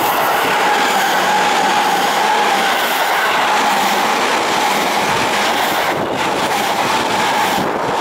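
Electric commuter train passing close by at speed: loud, steady running noise of wheels on rail, with a steady whine through it.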